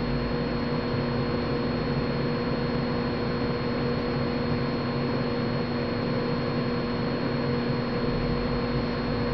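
Steady hiss with a constant electrical hum of several fixed tones: unchanging background machine noise with no separate events.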